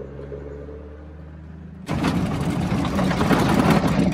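A vehicle engine running steadily at low revs. About two seconds in, this gives way abruptly to louder tyre and road noise of a vehicle driving on a gravel road.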